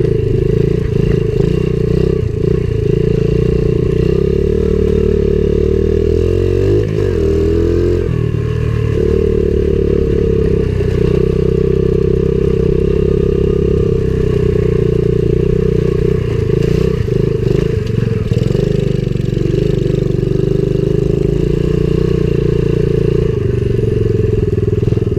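Coolster 70cc pit bike's small single-cylinder four-stroke engine running steadily while riding, with the revs shifting briefly around seven seconds in and again in the second half.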